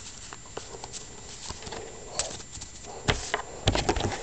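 Handling noise from a handheld camera being moved: scattered light clicks and taps, then several louder knocks and bumps in the last second or so.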